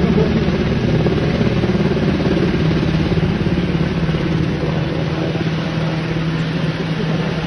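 Black Hawk helicopter flying overhead while carrying a light airplane as an underslung load: its rotor and engines make a loud, steady drone with a steady low hum.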